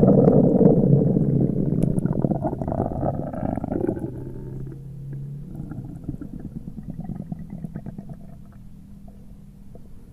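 Increased (hyperactive) bowel sounds heard through a stethoscope on the abdomen: loud, irregular gurgling rumbles, strongest in the first four seconds, then fading to softer, rapid gurgles. This is the increased intestinal activity typical of gastroenteritis or diarrhea.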